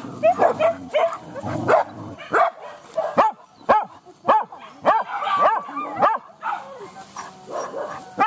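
Hunting dogs barking, a fast run of short, high, yelping barks at about two a second.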